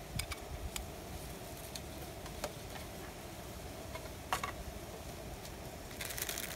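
Light, scattered clicks and taps of small gear being handled, a metal canister and items in a plastic basket, with a brief rapid rattle of clicks near the end, over a faint steady hum.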